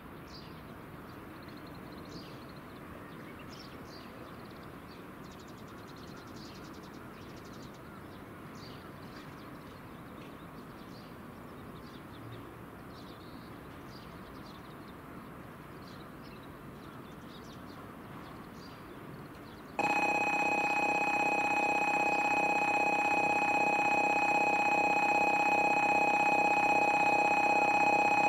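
Faint steady outdoor background with scattered short high chirps. About two-thirds of the way in, a loud electronic platform alarm starts abruptly and rings on steadily: the station's warning that a Shinkansen train is pulling into the platform.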